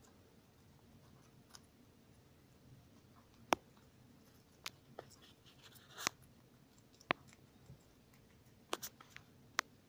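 Guinea pigs chewing and biting crisp lettuce: scattered sharp crunches, about eight in all, over a quiet background.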